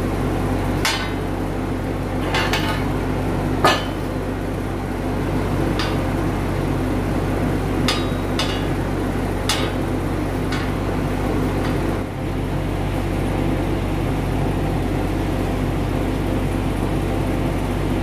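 Sharp metal knocks and clanks from steel frame parts being handled, about nine in the first eleven seconds, over a steady low hum.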